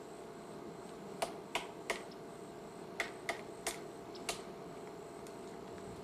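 About seven short, sharp clicks or taps over a steady low hiss: three in quick succession a little after the first second, three more about three seconds in, and one more a second later.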